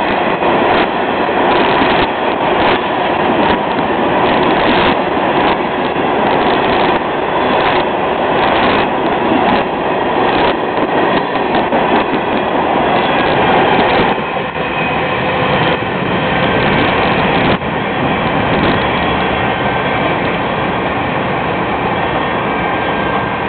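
Freight train hopper cars rolling past over a steady rumble, their steel wheels knocking over rail joints in an uneven run of clacks. The clacking mostly stops about three-quarters of the way through, and a steady rumble carries on.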